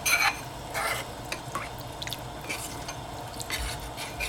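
A metal spoon stirring a starch-and-water slurry in a small bowl: irregular scraping strokes, the loudest about at the start.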